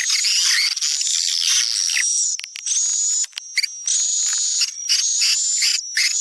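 Swiftlet lure call: recorded swiftlet twittering, dense rapid high-pitched chirps and trills with short falling sweeps. There are a few brief breaks near the middle. It is the kind of call played from speakers at swiftlet houses to draw the birds in to nest.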